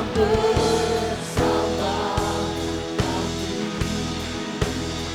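Live worship band playing a pop-rock worship song while voices sing together, with a drum beat about every 0.8 seconds.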